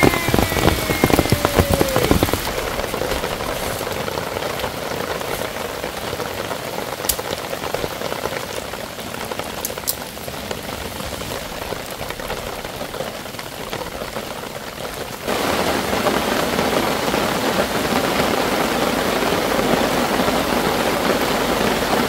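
Heavy rain falling on a camping tarp: a dense, close patter for the first two seconds, then a steady hiss of downpour that steps up louder about fifteen seconds in.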